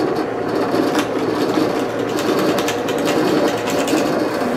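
Drill press motor running steadily while the bit is fed down into a wooden panel, sinking a shallow countersink recess, with scratchy cutting noise from the wood at times.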